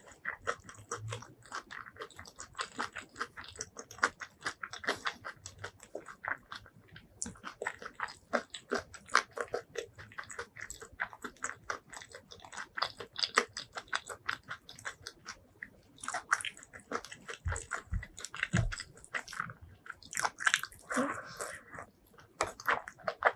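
Close-miked eating sounds: wet chewing and biting of food, with many quick, irregular mouth clicks and crunches. A few dull low thumps come about three quarters of the way through.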